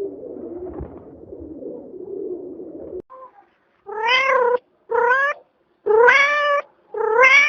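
A domestic cat meowing four times in quick succession from about four seconds in, each meow about half a second long and rising in pitch. Before that, a low, continuous sound fills the first three seconds and cuts off abruptly.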